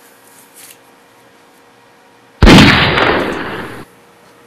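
A single loud gunshot sound effect about two and a half seconds in, with a fading tail that cuts off abruptly after about a second and a half.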